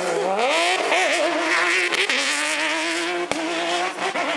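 Off-road rally buggy's engine revving hard as it accelerates out of a muddy corner, the pitch climbing and then stepping up and down as the gears change, with a hiss from the tyres on the loose dirt. Two sharp knocks near the end.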